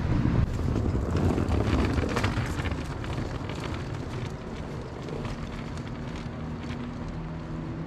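Wind buffeting the microphone over the rumble of road traffic, louder and more clattery in the first few seconds, then easing. A few faint steady tones come in during the second half.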